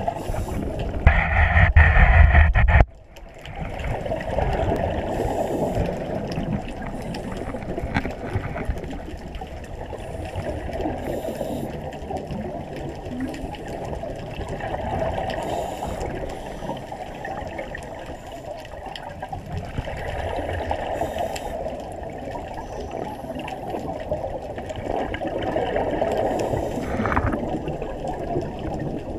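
Muffled water noise heard underwater, a steady rushing that swells and fades every few seconds. A louder rush in the first three seconds cuts off suddenly.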